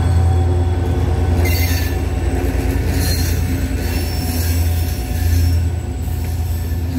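HŽ class 2044 diesel locomotive with a passenger train. Its engine runs with a steady low drone while the wheels squeal in short high bursts about a second and a half in, around three seconds in, and again between four and five seconds.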